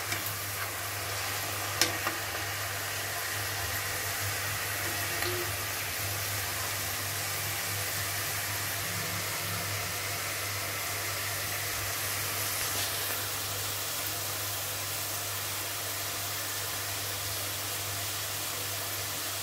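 Peeled field beans deep-frying in hot oil: steady sizzling of the oil, still foaming as the soaked beans give up their moisture. One sharp pop or tick about two seconds in.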